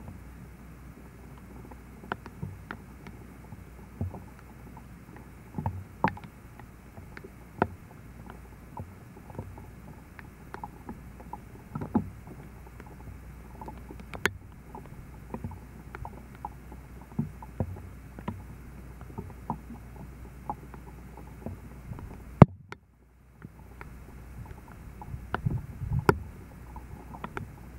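Small ripples lapping at a sandy shoreline, heard as scattered soft ticks and splashes over a steady low rumble. About three-quarters through comes one sharp click and a second-long dropout. A stronger low rumble follows near the end.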